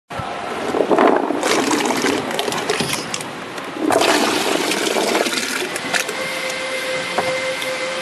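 Water churning and splashing in a stainless steel bubble washing machine as a crate of jujubes is tipped into its tank, with louder surges of splashing about a second in and again at about four seconds. From about six seconds a steady hum sits under the churning water.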